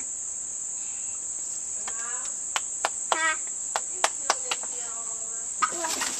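Steady, high-pitched chorus of insects, with several sharp clicks and a few short calls or voices over it.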